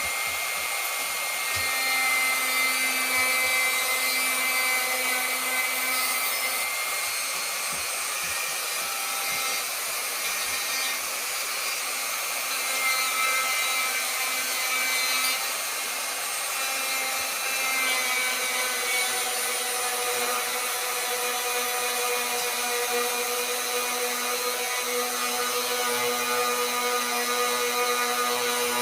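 Dremel 4300 rotary tool running with a carving bit, cutting into a block of cedar: a steady high whine whose tone shifts a little partway through as the bit bites.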